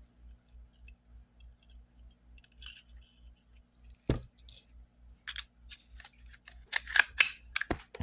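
Sharp clicks and knocks from small hard objects being handled on a workbench, irregularly spaced, loudest in a cluster near the end, with a brief hiss a few seconds in.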